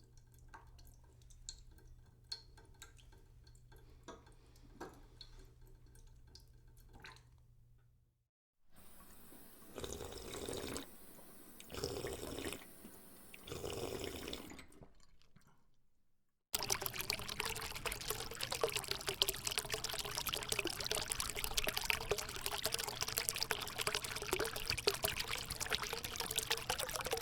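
A run of separate water sound effects: faint dripping over a low steady hum, then three surges of pouring water about two seconds apart, then from a little past halfway a loud steady stream of running water.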